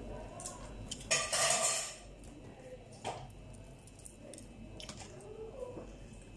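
Plate and tableware clatter as food is handled while eating: a noisy rustling scrape about a second in, then a few light clinks and knocks.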